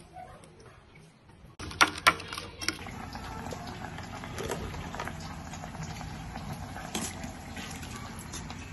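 A pot of water boiling, a steady bubbling that starts about one and a half seconds in, with a few sharp clicks and knocks just after it starts.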